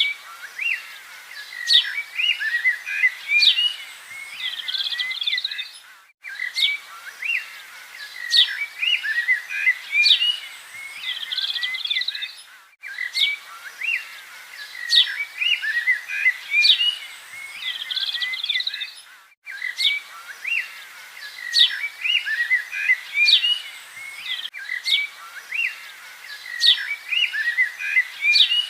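Birds chirping and calling with many quick, high chirps. It is a short recording looped about every six and a half seconds, with a brief cut-out at each repeat.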